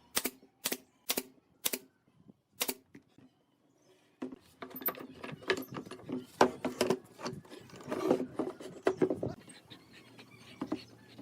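A run of sharp taps or knocks about twice a second, then a short pause, then a longer, busier stretch of clattering and tapping that dies down near the end.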